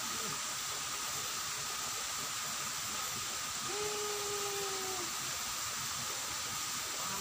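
A steady high hiss of insects in the surrounding vegetation, with a thin, even whine running through it. About midway, a single drawn-out tone lasts a little over a second.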